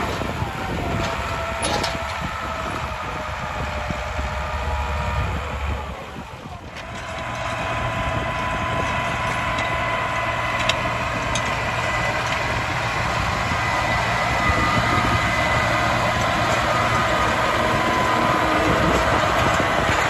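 New Holland 7840 tractor's six-cylinder diesel engine running steadily under load while pulling a PTO-driven power harrow and seed drill. The sound fades briefly about six seconds in, then grows gradually louder toward the end as the tractor comes closer.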